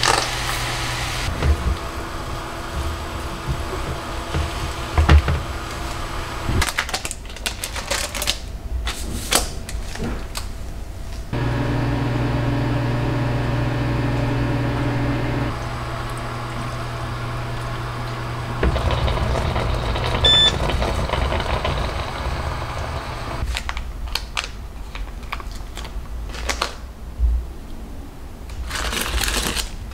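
Kitchen clatter and clicks, then an LG microwave oven running with a steady hum for about four seconds, and later a single short beep from it.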